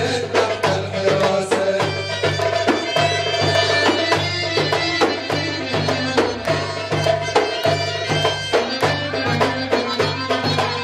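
Nubian dance music: a Middle Eastern folk tune with a steady, even drum beat, repeating bass notes and a long held melody note over it.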